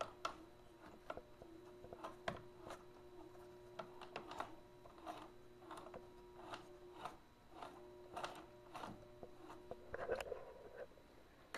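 Kenmore sewing machine mechanism clicking and ticking irregularly over a faint steady hum that drops out briefly partway and stops near the end; the owner takes the trouble for a lack of oil and a loose bearing cap.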